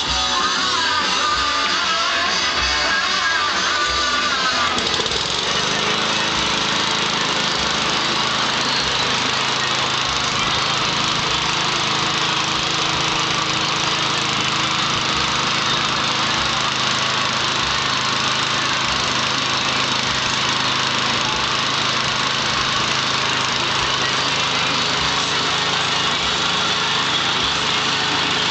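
Guitar music for the first few seconds, then an MTD walk-behind mulching lawn mower's small single-cylinder engine running steadily from about five seconds in.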